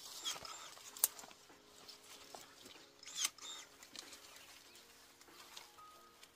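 Cordless electric pruning shears cutting aronia branches: two sharp snips, about a second in and just after three seconds, with twigs rustling between them. Birds chirp faintly over soft background music.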